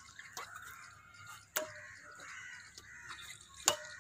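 Two sharp strikes of badminton racket strings on the shuttlecock, about two seconds apart, the first near the middle and the second near the end, as a rally goes back and forth.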